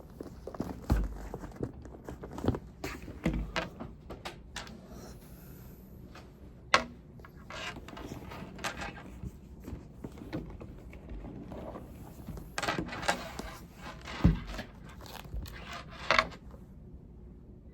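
Irregular clicks, knocks and rustling of small objects being handled, with a few sharper knocks scattered through and a pause near the end.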